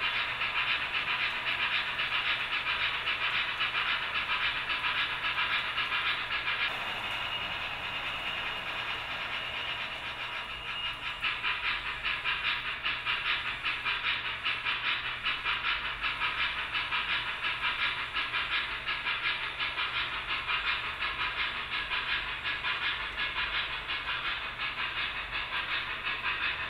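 Steam locomotive chuffing steadily with a hiss of steam, as the MTH 999 O gauge model steam engine crosses the bridge; the chuffs soften for a few seconds about seven to eleven seconds in, then pick up again.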